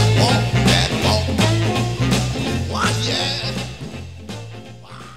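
Live blues-rock band playing an instrumental stretch: electric guitars and drums over a busy run of deep bass notes. The music fades out over the last two seconds.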